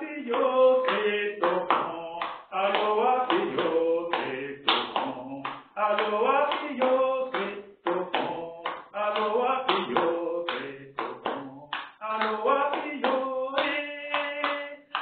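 A man singing the Gospel acclamation solo in a Beninese language, clapping his hands along with the song.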